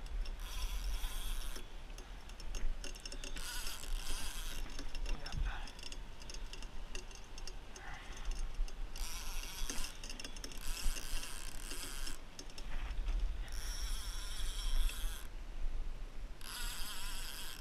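Mechanical ratcheting and gear noise from fishing gear winding in line, coming in spurts of a second or so, over a steady low rumble.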